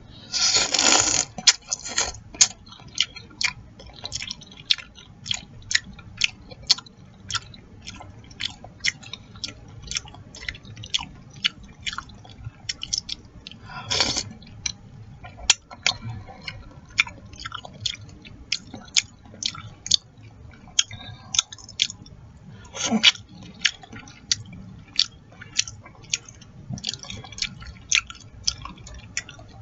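Close-miked mouth sounds of eating chicken noodle soup: steady wet chewing and lip-smacking clicks, with a long loud slurp about half a second in and two shorter slurps later on.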